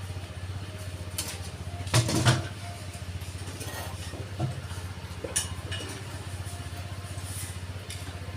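A steady low engine hum, with scattered metallic clanks and knocks over it, the loudest a pair about two seconds in.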